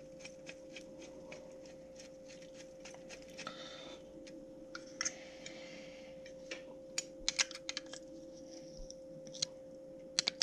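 Light irregular clicks and taps of a screwdriver and small plastic and metal camera-cage parts being handled while a mount screw is tightened, a few sharper clicks past the middle, over a faint steady hum.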